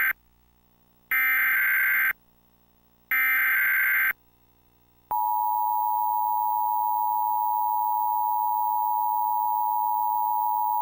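Emergency Alert System header for a tornado warning: the end of one data burst and then two full one-second bursts of screechy SAME digital data, a second of silence between each. About five seconds in, the steady two-tone EAS attention signal starts and holds.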